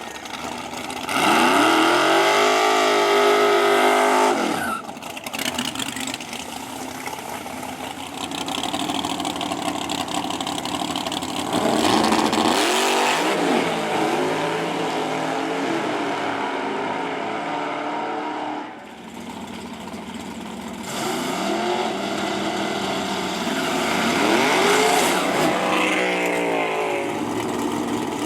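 Drag race car engines revving and accelerating hard, in three loud stretches with the pitch climbing and falling, broken by quieter dips about five and nineteen seconds in.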